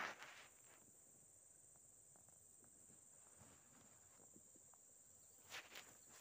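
Near silence with a steady high-pitched insect drone, like crickets. Brief rustling fades out at the start, and two short rustles come near the end.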